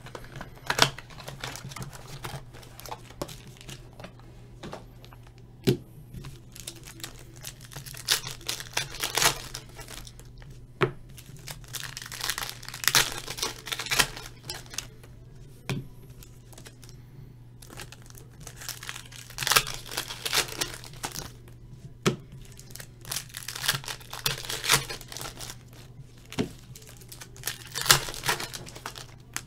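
Plastic wrapper of a Topps baseball card pack crinkling and tearing as it is handled and opened by hand, in crackly bursts a few seconds apart with sharp clicks between.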